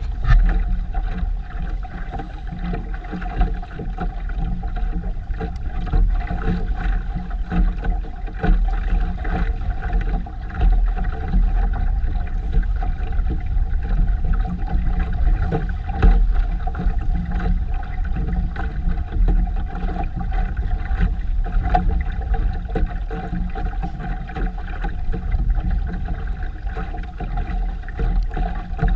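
Boat underway: a steady low rumble of wind and water with a constant hum.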